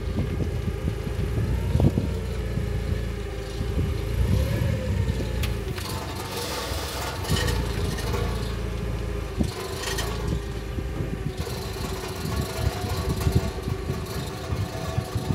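Forklift engine running steadily, its pitch rising briefly a couple of times as the forklift inches a hydraulic cylinder into place. A few sharp metal knocks come in the middle, about six and ten seconds in.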